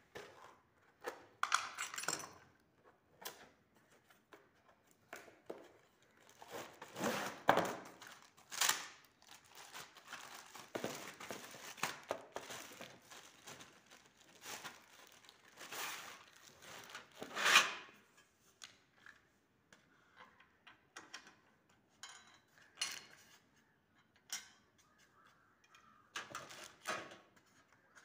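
Unpacking and handling ceiling-fan parts: clear plastic wrapping crinkling and tearing, the cardboard box being moved, and now and then small knocks and clinks of metal parts. The noises come in separate bursts, with two louder rustling spells near the middle.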